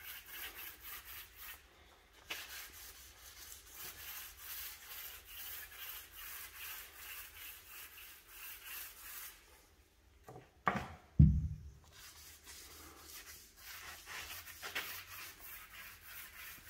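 Paint roller rolling thick decorative paint onto a plastered wall: a soft, sticky rubbing swish repeating with each pass. A single thump about eleven seconds in is the loudest sound.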